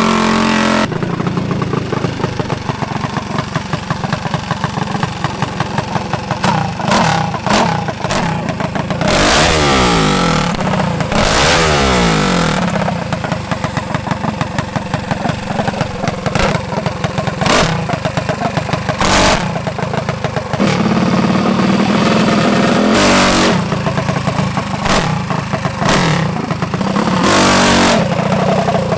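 Drag minibike's small engine running close by, with a steady fast putter broken by repeated revs: a rise and fall in pitch around the middle, then several short sharp throttle blips near the end.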